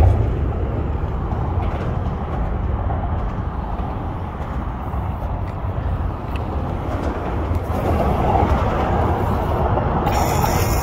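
Steady low rumble of a passing Amtrak train, a little fuller about eight seconds in.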